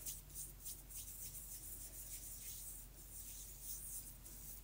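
Fingertips rubbing BB cream into the skin of the face, a faint soft rubbing in quick repeated strokes.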